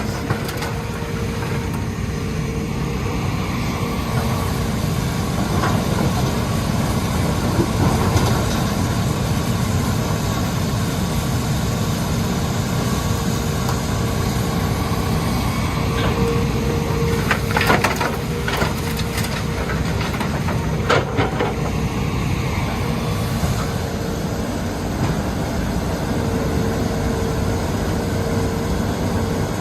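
Hitachi Zaxis 210 excavator's diesel engine running steadily, with a few sharp knocks a little past the middle.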